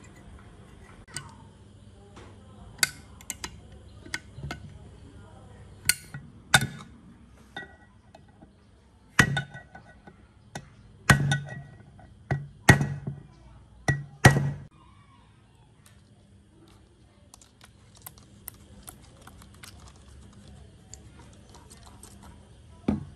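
Metal engine parts and a screwdriver clinking and knocking in an aluminium crankcase during reassembly of a small generator engine. Scattered sharp clinks, with a run of louder, ringing knocks about halfway through, then quieter ticks.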